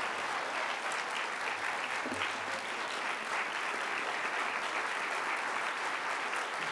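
Audience applauding steadily: a large crowd clapping at the close of a speech.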